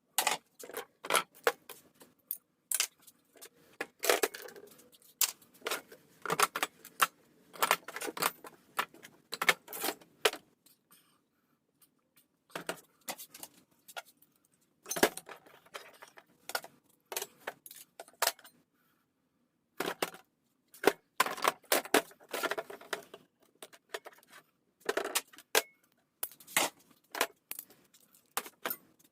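Small pieces of scrap metal clinking and rattling as they are handled, in quick runs of sharp clinks broken by short pauses.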